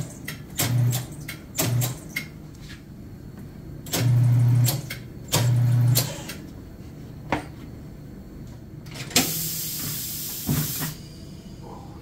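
Tire changer's electric turntable motor humming in five short bursts, each starting and stopping with a click, as the tire is worked onto the rim. About nine seconds in, compressed air hisses for nearly two seconds.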